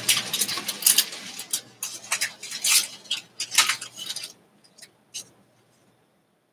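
Paper rustling and crinkling as collage cut-outs and printed sheets are handled, a quick run of crisp short rustles that dies away about four seconds in, followed by a couple of faint ticks.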